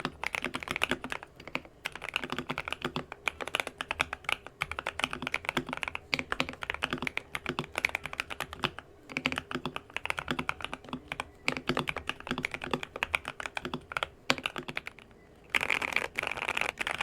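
Royal Kludge RK84 mechanical keyboard with prelubed Gateron Yellow switches being typed on in a fast, continuous run of keystrokes. The typing pauses for about a second near the end, then resumes in a quicker, denser flurry.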